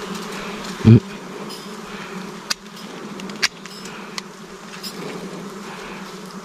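A steady hum of many bees buzzing around a freshly cut wild honeycomb. A short low thump sounds about a second in, and a few sharp clicks follow later.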